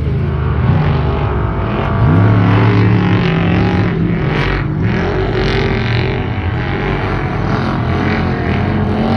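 Off-road race trucks running at speed, their engine pitch rising and falling as they rev and pass; one climbs sharply and gets louder about two seconds in.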